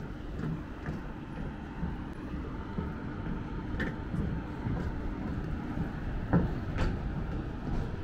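A train running, a steady low rumble with a faint hum, with a few sharp clicks about four seconds and six and a half seconds in.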